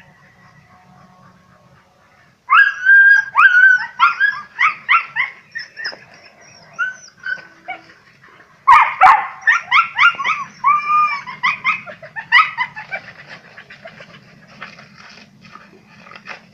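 Hunting dogs yelping in quick, high-pitched runs: a loud bout about two and a half seconds in, a second loud bout around nine seconds in, then fainter yelps toward the end.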